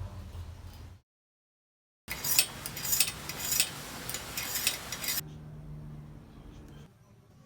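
Metal clinking and rattling, a dense run of sharp clicks lasting about three seconds, set between short stretches of low hum and a cut of dead silence.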